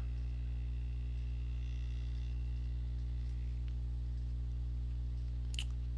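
Steady low electrical hum, with one short click near the end.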